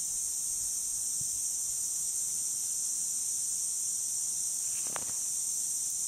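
Steady high hiss of water spraying from a pop-up lawn sprinkler's multi-stream nozzle.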